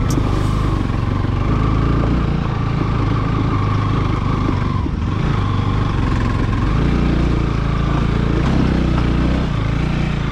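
Motorcycle engine running steadily while riding, with a rushing noise over the engine note.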